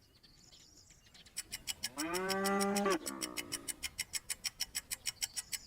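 A cow mooing once, a single drawn-out moo about two seconds in, over a rapid, even ticking of about seven ticks a second that starts just before the moo and keeps going after it.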